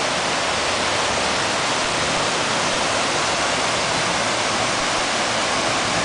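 Decorative waterfall cascading down a tall artificial rock facade: a steady, unbroken rush of falling water.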